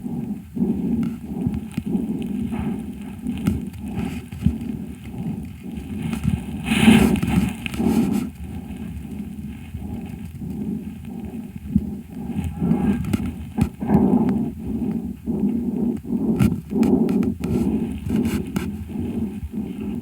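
A calf's breath sounds picked up through a homemade stethoscope microphone: rapid, repeated breaths about once a second, with short clicks and crackles throughout and one stronger breath about 7 seconds in. The calf is on its fourth day of a respiratory illness, with a lesion found in its right lung.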